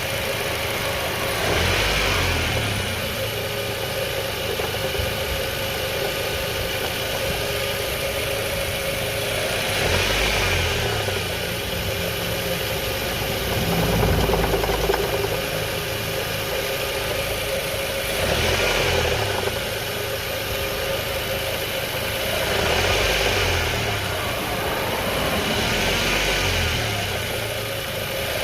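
Car engine idling under the hood, its speed rising briefly several times and settling back, with a knock coming from the engine bay whose cause is not known.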